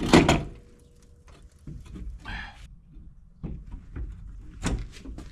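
Loose steel cab door of a Massey Ferguson 50B backhoe knocking and clunking against the cab frame as it is handled and pushed into place, loudest right at the start, followed by a few lighter knocks.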